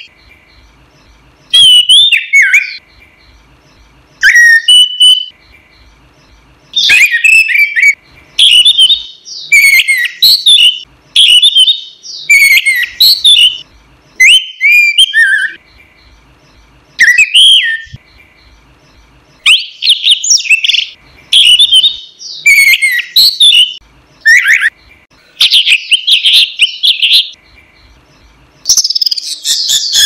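Orange-headed thrush (anis merah) singing: a string of short, varied whistled phrases with quick up-and-down glides and twitters, each about a second long with brief pauses between.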